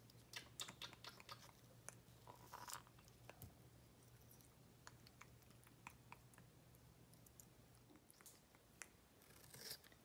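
Faint, scattered clicks and scrapes of an African grey parrot's beak chewing a piece of cantaloupe.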